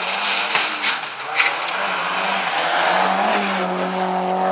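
Rally car sliding past on gravel, its engine running hard at high revs over heavy tyre and gravel noise. A few sharp cracks come in the first second and a half.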